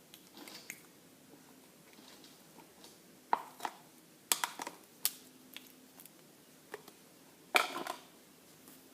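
Slime being squeezed and pressed, giving sharp, irregular clicking pops from trapped air, scattered through the middle and bunched into a louder crackling cluster near the end.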